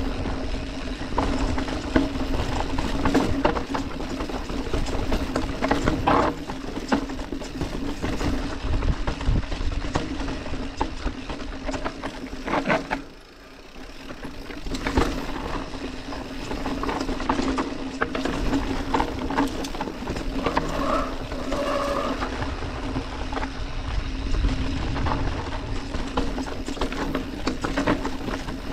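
Orbea Occam full-suspension mountain bike descending a rough dirt trail: tyres rolling over dirt and roots, with frequent knocks and rattles from the bike and a steady low hum. About 13 seconds in it slows almost to a stop and goes briefly quieter.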